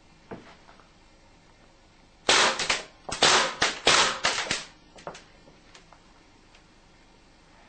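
Airgun shots and the pellets hitting an LCD monitor: a tight cluster of loud, sharp cracks and impacts lasting about two seconds, starting a couple of seconds in, with a few faint ticks after.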